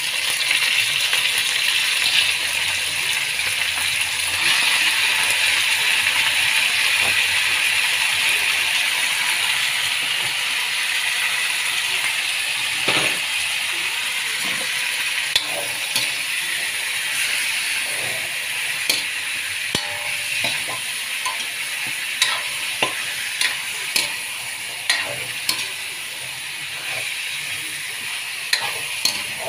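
Raw chicken pieces sizzling in hot oil with garlic and onion in a wok, while a metal spatula scrapes and clinks against the pan. The sizzle is strongest early and eases off, and the spatula clinks come more often in the second half.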